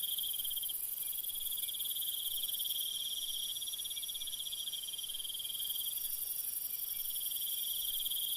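A steady chorus of crickets trilling, high-pitched and unbroken.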